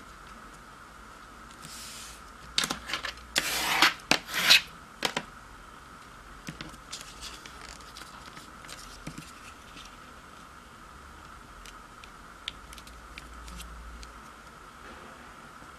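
A sheet of origami paper being folded and creased by hand: a burst of loud rustling and sliding paper about three seconds in, then faint scattered crackles and taps as the folds are pressed flat. A faint steady high hum runs underneath.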